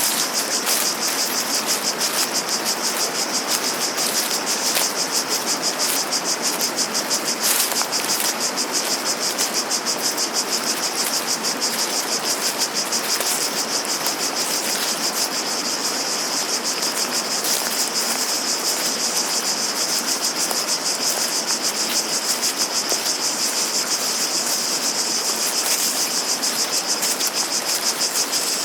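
Cicadas calling in chorus, a steady high-pitched buzz pulsing rapidly, over a steady background hiss.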